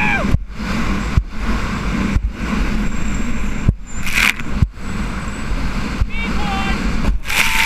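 Jet ski running at speed across choppy sea: steady engine and rushing wind noise, broken by several sudden brief dips. Loud bursts of splashing spray come about four seconds in and near the end.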